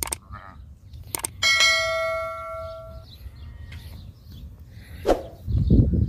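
Subscribe-button sound effect: a couple of sharp clicks, then a bell chime that rings and fades over about a second and a half. A low rumble comes in near the end.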